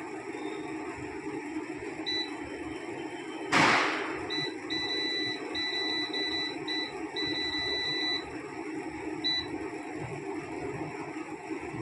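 Electronic beeps from a digital air fryer's control panel: one about two seconds in, a quick run of short and longer beeps between about four and eight seconds, and one more near nine seconds. A sudden loud burst of noise cuts in at about three and a half seconds, and a steady low hum runs underneath.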